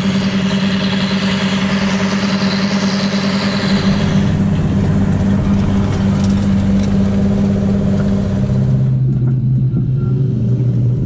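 John Deere 8530 tractor's six-cylinder diesel engine running steadily while working a seedbed cultivator. About nine seconds in, the engine note drops to a lower pitch as it throttles back.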